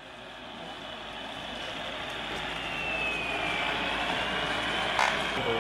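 Radio-controlled scale trucks running, heard as a steady hiss with a faint electric drive whine that falls in pitch about three seconds in. The sound swells as it fades in, and there is a single click near the end.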